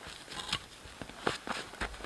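Clothing rustling and snow crunching as a person shifts position, with a few sharp crackles from a small log fire.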